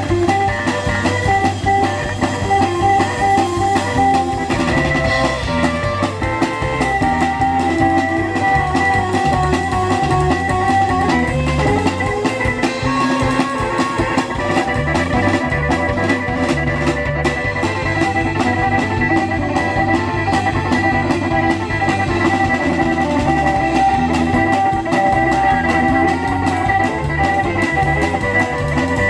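Instrumental break of a song: guitar playing over a drum kit with a steady beat, no singing.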